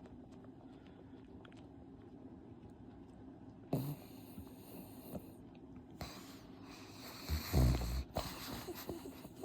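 Pug snorting and snuffling, with a louder snort about three-quarters of the way through.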